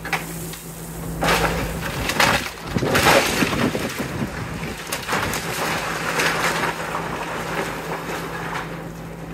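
Excavator demolishing a brick building: irregular crunching and crashing as brick, timber and debris break and fall, heaviest from about one to three and a half seconds in and again around five to seven seconds, over the steady hum of the excavator's engine.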